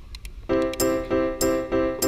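Background music comes in about half a second in: a steady pulse of repeated bright chords on a keyboard-like instrument, about three a second. Before it there are a few faint clicks over low ambient noise.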